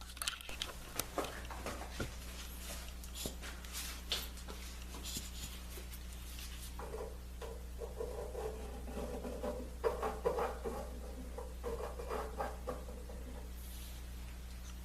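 Hands working a glue-up on a wooden ring: scattered light clicks and taps as the clamp is loosened, then from about seven seconds in a run of short rubbing strokes as glue is worked onto the joint. A steady low hum runs underneath.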